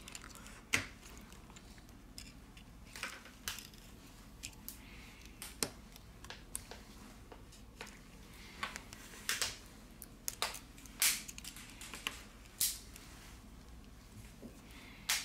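Irregular small clicks and taps of fingers and metal tweezers handling the internal parts of an opened Xiaomi Redmi Note 7 smartphone, heard over a faint steady hum.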